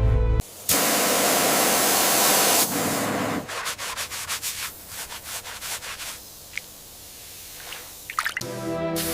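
Abrasive scrubbing on the bronze artifact: a continuous rasping for about two seconds, then a series of short, separate rubbing strokes.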